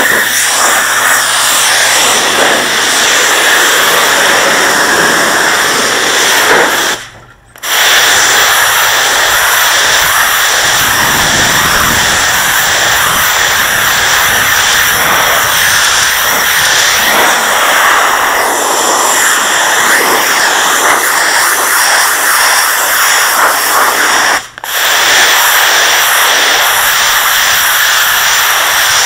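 Pressure washer's high-pressure water jet blasting onto porcelain patio slabs, a loud steady hiss. It cuts out twice: for under a second about seven seconds in, and for a moment about 24 seconds in.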